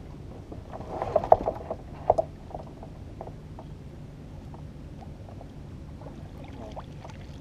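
Kayak paddle strokes: the paddle blade splashes in the water and knocks against the kayak. Most of it comes in a short burst between about one and two seconds in, then only a few faint drips and ticks follow.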